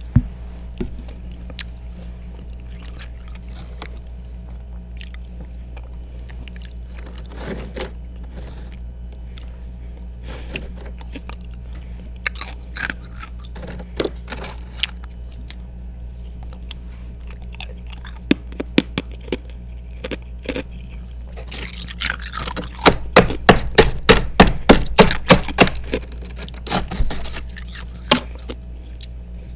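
Close-up chewing of freezer frost and thick ice chunks: scattered crunches and scrapes, then a run of loud crunches, a few a second, starting about three-quarters of the way through. A steady low hum runs underneath.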